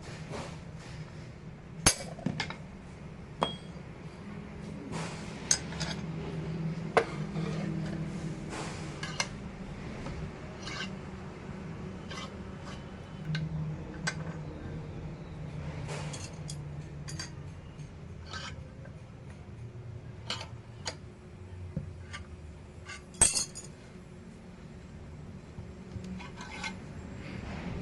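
Irregular sharp metallic clinks of steel tools and workpieces being handled and tapped, spaced unevenly a second or more apart, the loudest near the start and about three-quarters of the way through, over a steady low hum.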